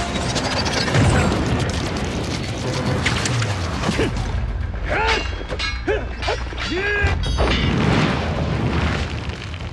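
Battle sound effects from a wuxia drama's soundtrack: heavy booms and hits over film music. About five to seven seconds in come a few short pitched sounds that rise and fall.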